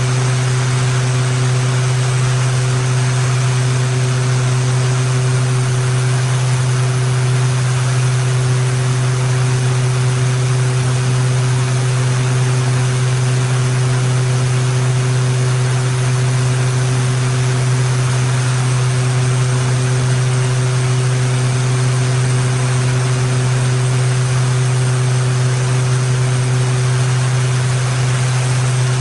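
Beechcraft King Air C90's twin PT6A turboprops and propellers running at steady approach power: a deep, unchanging propeller drone with a steady hiss of rushing air over it.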